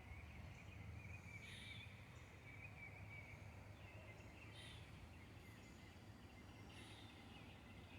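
Near silence: faint outdoor ambience with a low steady hum and three brief faint chirps spaced a couple of seconds apart.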